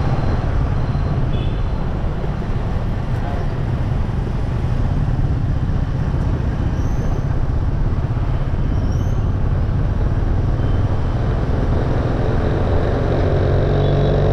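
Motorcycle engine running steadily under way, with road and wind rush from riding through traffic. The engine note grows louder near the end.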